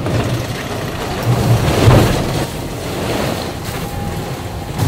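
Wind and rushing sea water on board an IMOCA 60 racing yacht under sail at speed, a loud, steady rush that surges strongest about two seconds in.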